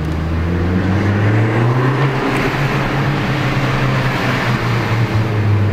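Ford Focus ST's turbocharged 2.0-litre four-cylinder running through an aftermarket exhaust, heard from inside the cabin in a parking garage: a low, bassy drone that rises a little in pitch over the first couple of seconds as the car pulls, then holds steady.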